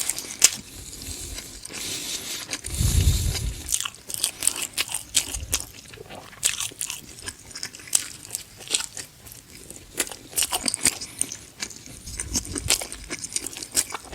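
Close-miked biting and chewing of pizza, the crust crunching, with many sharp mouth clicks throughout. A louder low thump comes about three seconds in.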